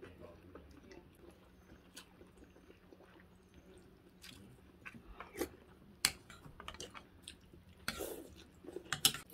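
A person eating noodle soup: quiet chewing, then a series of sharp clicks from about halfway through as a metal fork and spoon knock against the bowl, the loudest near the end.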